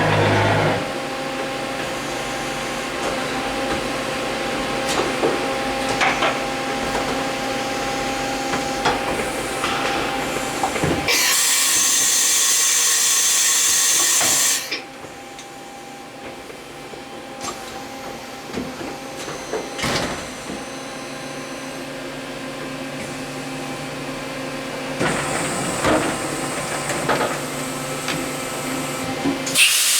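Mitsui Seiki HS3A horizontal CNC machining center running, with steady machine tones and scattered clicks. A loud hiss comes on for about four seconds before the middle, the machine then runs quieter, and hissing returns near the end.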